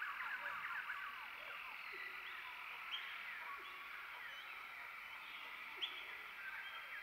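Outdoor animal chorus: many quick, short chirps over a steady high hiss, thinning out in the middle and picking up again near the end, with one sharp click near the end.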